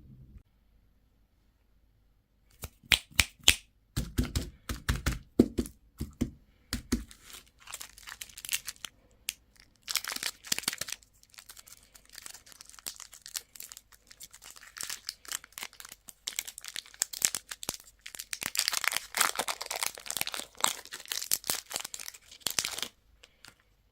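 Candy wrappers being crinkled and torn open in bursts of short crackles and rips, starting a few seconds in. A few low knocks come between about four and seven seconds in, and the densest crinkling is near the end.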